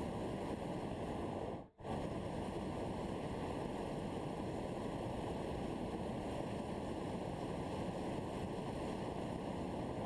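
Steady rushing noise, strongest in the low and middle range, that cuts out for a split second just under two seconds in and then carries on unchanged.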